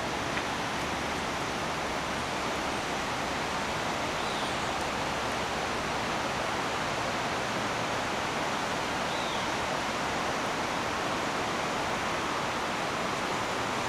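Steady rushing of a river, an even wash of water noise that holds unchanged throughout.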